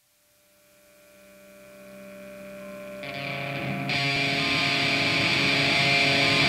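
Heavy metal track's intro fading in from silence: sustained distorted electric guitar notes ringing out and swelling steadily louder, with more layers coming in about three and four seconds in.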